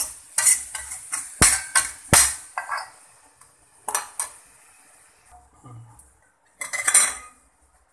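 Steel ladle clinking and scraping against an iron kadhai while stirring, then the steel lid clattering onto the pan: a run of sharp clinks in the first two seconds, a couple more around four seconds, and a short rattle near seven seconds.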